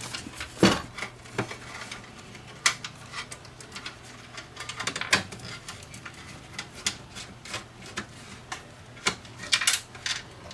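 Irregular small metallic clicks and taps as a screwdriver works the Robertson (square-drive) screws holding the circuit board in a sheet-metal housing, with a faint steady low hum underneath.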